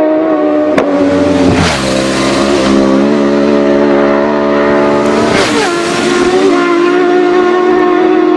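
Two racing motorbikes pass at speed, about one and a half and five and a half seconds in. Each engine note swells and drops in pitch as it goes by. Steady sustained tones hold underneath throughout.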